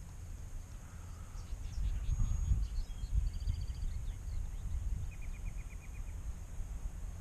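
Faint wild bird calls over a steady low outdoor rumble: a few scattered chirps, then a short quick trill of about eight even notes about five seconds in.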